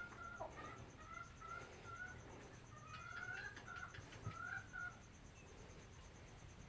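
Chickens calling faintly: a run of short, high pitched notes, several of them rising, that stops about five seconds in.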